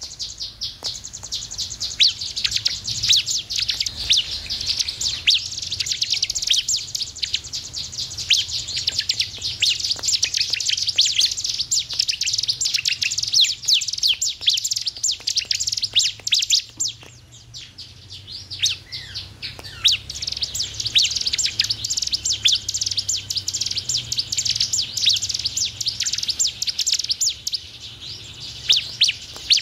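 Bar-winged prinia (ciblek) calling: a fast, dense run of high, sharp chirps, with a brief lull a little past halfway.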